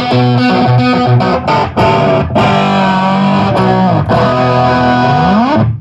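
Electric guitar played through a Harmonic Percolator fuzz pedal: loud distorted chords ringing out, with a slide up in pitch near the end before the playing stops suddenly.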